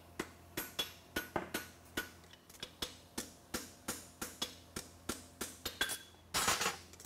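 Forging hammer striking a red-hot steel horseshoe on an anvil: quick, even blows, about three a second, each with a short metallic ring. A brief hiss near the end.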